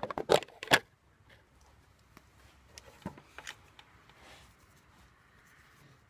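Tools and parts handled on a workbench: a few sharp knocks and clicks in the first second, then faint scattered ticks and a soft rustle as a hot glue gun is brought to the board.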